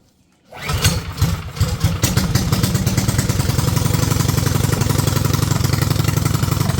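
Small gasoline engine catching about half a second in, running unevenly for a second or so, then settling into a steady, even run.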